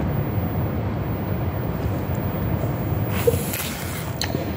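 Steady low rumble of background noise, with a brief rustle of a paper napkin about three seconds in and a light click soon after.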